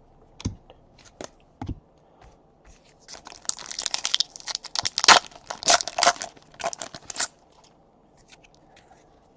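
A few light taps, then a trading card pack's foil wrapper being torn open and crinkled for about four seconds.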